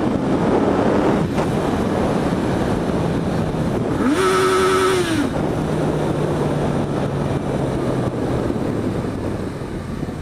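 Yamaha XJ6's 600 cc inline-four engine under way with wind noise. About four seconds in it revs up quickly, bounces off the rev limiter with a choppy stutter for about a second, then drops and settles at a lower pitch.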